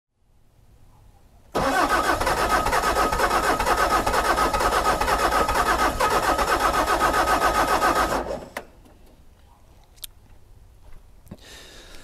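Bobcat S590 skid-steer's Doosan D24 2.4-litre four-cylinder diesel cranking on a cold start, a fast, even pulsing that begins about a second and a half in, runs for about seven seconds and then cuts off. This engine is extremely hard to start when cold. Two faint clicks follow.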